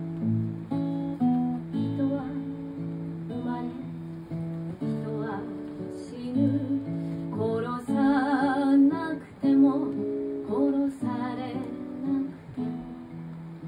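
A woman singing a slow folk song, accompanying herself on a strummed steel-string acoustic guitar. Some held notes near the middle carry vibrato.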